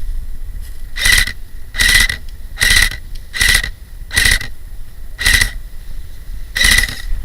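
Footsteps: seven short scuffing steps about 0.8 seconds apart, over a steady low rumble of wind or handling on a head-mounted camera's microphone.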